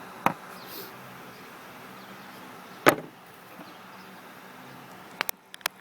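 Sharp clicks and knocks from hand tools and a small retaining clip being handled at a steering wheel, the loudest about three seconds in and a quick run of three or four near the end, over a faint steady hum.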